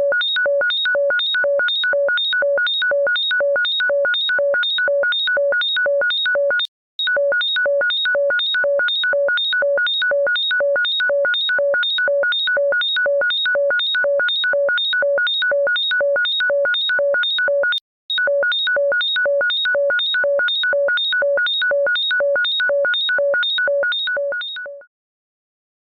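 Harsh electronic ringtone: one loud multi-pitched beep repeated rapidly and evenly, about three times a second, broken by two brief gaps and stopping near the end.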